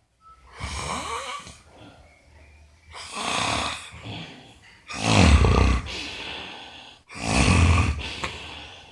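Loud snoring that sounds like a piglet grunting: four long snores about two seconds apart, the third the loudest.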